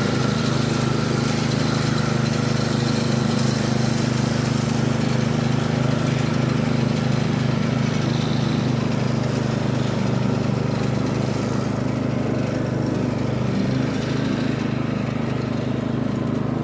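Riding lawn mower engine running at a steady speed with the freshly sharpened blade engaged, cutting grass.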